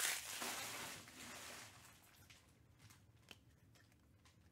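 Plastic trading-card pack wrapper crinkling, dying away over the first second or two, then faint taps and slides of trading cards being handled and squared into a stack.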